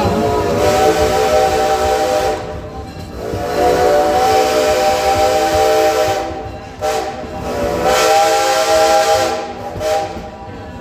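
Steam locomotive whistle blowing three long blasts, each a chord of steady tones over a hiss of steam.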